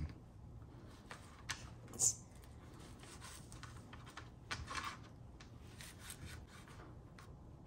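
A small knife cutting raw bacon on a plastic cutting board: scattered light scrapes and taps of the blade against the board, a little louder about two seconds in and again near five seconds.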